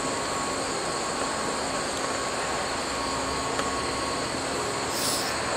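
Steady background noise of a large exhibit hangar: an even ventilation rush with faint steady hums, and a brief hiss about five seconds in.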